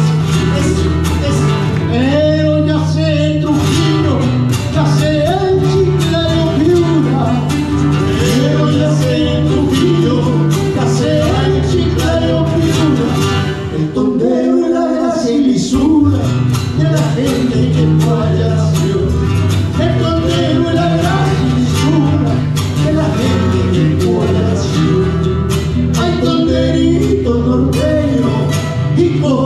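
A tondero, the northern Peruvian song form, played live on two acoustic guitars, with a man singing the melody into a microphone. A steady guitar bass runs under the voice and drops out briefly about halfway through.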